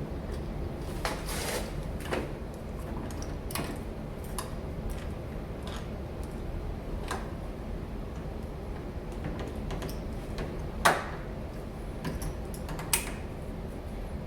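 Scattered small clicks and knocks of Kwikset 910 smart-lock hardware being fitted and screwed onto a door, with two sharper knocks near the end, over a steady low hum.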